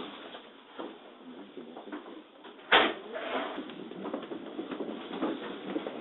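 JR 205 series electric train interior: a single sharp thump about three seconds in, then the train starting off from the station, its running noise and wheel clatter building.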